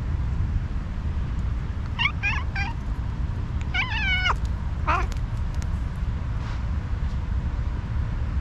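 Tabby cat giving angry meows: three short, quick calls about two seconds in, then a longer call that falls at its end around four seconds, and one more short call near five seconds. A steady low rumble runs underneath.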